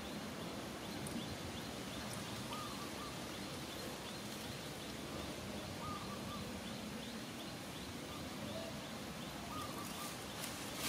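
Outdoor ambience: a steady background hiss with a faint, regular run of short high chirps and, now and then, a brief wavering call. A few light clicks come near the end.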